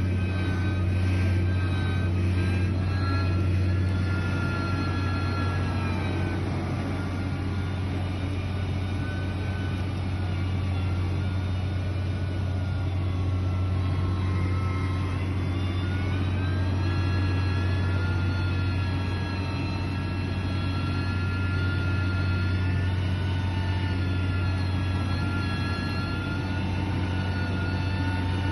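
Heavy construction machine's diesel engine running steadily under a constant low hum. Its pitch drops about six seconds in and climbs again around fifteen seconds.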